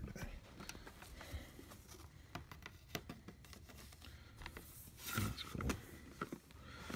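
Faint handling noise from a portable air conditioner's plastic window exhaust panel being moved and fitted: scattered light clicks and rustles, with a short louder clatter about five seconds in.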